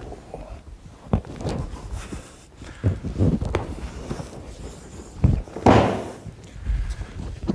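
Bare feet, knees and bodies thumping and scuffing on a dojo mat during an aikido throw, with several short thuds and the loudest, longer thud about six seconds in as the thrown partner rolls onto the mat.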